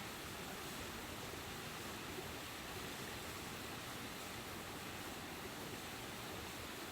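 Steady, faint rushing noise with no distinct events.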